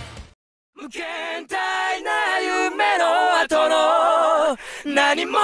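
Film soundtrack song: a singing voice holds long, wavering notes in slow phrases with little backing, after a brief silence about half a second in.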